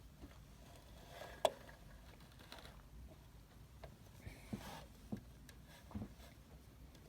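Faint room noise with scattered small clicks and taps: one sharp click about a second and a half in, then a few soft knocks and a brief rustle later on.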